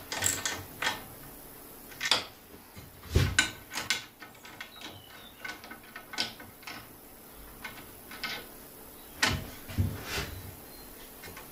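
A 14 mm spanner working the nuts on a light fitting's mounting studs: scattered clicks and knocks every second or two, the loudest around two and three seconds in.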